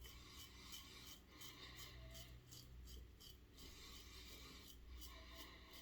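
Faint, quick strokes of a Gillette Red Tip double-edge safety razor with a Kai blade scraping through lathered stubble, about three short scrapes a second.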